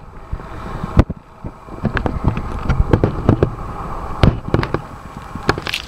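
Handling noise close to the microphone: irregular clicks and knocks over a low rumble, with a few louder knocks about a second in and again near four and five and a half seconds.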